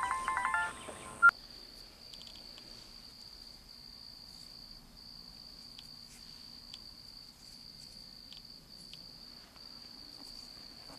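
Crickets trilling steadily in one unbroken high note at night. In the first second a short electronic jingle plays and cuts off with a sharp click.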